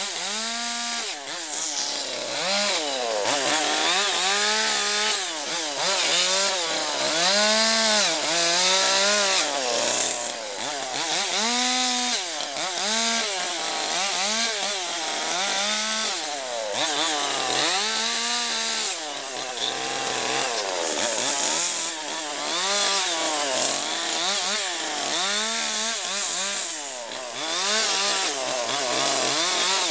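Large two-stroke chainsaw with a long bar carving into a log, its engine revving up and easing off again and again, the pitch rising and falling every second or two as the chain bites into the wood.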